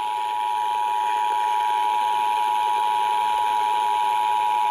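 Emergency Alert System attention tone received over the radio: a steady electronic tone near 1 kHz held without a break over radio hiss, signalling that a severe thunderstorm warning follows.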